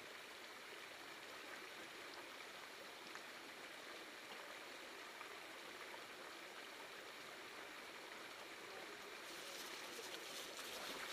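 A shallow stream running steadily over a rocky ford. Near the end a mountain bike comes down into the ford, its tyres on the wet stones adding a louder hiss and a few clicks.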